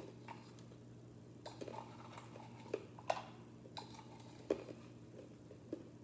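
A can of Blue Diamond almonds being handled: scattered light clicks and taps of the metal can, its lid and the nuts inside, over a faint steady hum.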